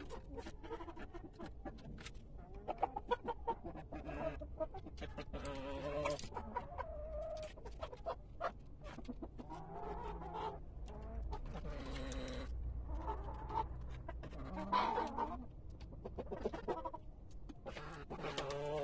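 A flock of chickens clucking and calling, with drawn-out calls rising out of the chatter every few seconds. Scattered short clicks run through it.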